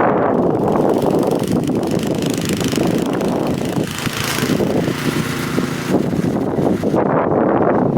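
An engine running steadily with an even, low pitch and no letup.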